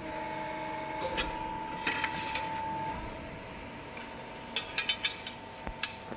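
Beyeler CNC press brake running with a steady high hum that drops away about three seconds in. Several sharp metallic clicks and knocks come around one to two and a half seconds in, and again in a quick cluster between four and six seconds.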